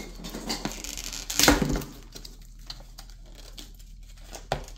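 Paper packaging sleeves and cardboard toy tubs being torn and pulled open by hand. A loud rip comes about a second and a half in, followed by light crinkling and small scattered clicks, with one sharper click near the end.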